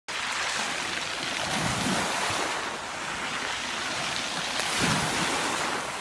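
Small sea waves washing in over a pebble beach and drawing back, a steady surf with two louder surges.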